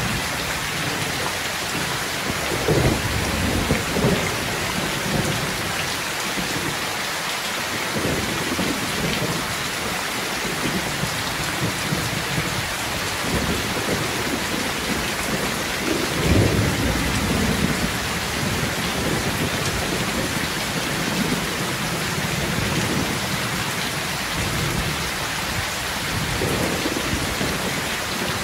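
Heavy rain falling steadily, with low rumbles of thunder swelling up a few seconds in, most strongly around the middle, and again near the end.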